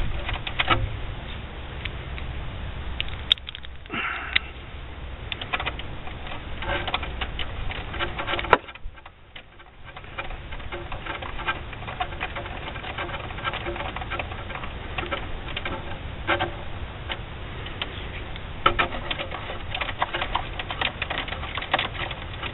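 Ratchet clicking in short irregular runs as the 5/16 bolts holding a Ford Escape V6's idle air control valve are backed out, along with small taps and scrapes of the tool and parts being handled. There is a short lull about nine seconds in.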